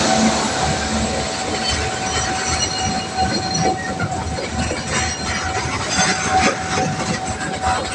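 A train passing over a railway level crossing, its wheels clattering irregularly on the rails under a continuous rumble. The clacks grow more distinct in the second half, over a steady single tone.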